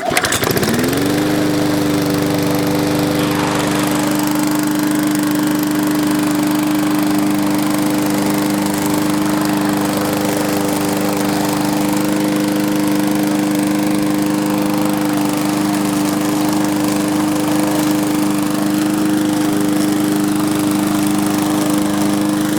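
Push lawn mower's 5-horsepower Briggs & Stratton single-cylinder engine starting and rising in pitch over about a second, then running steadily at a constant speed.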